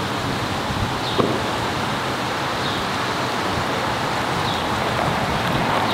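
A car running at low speed, a steady rumble mixed with wind noise, with one short click about a second in.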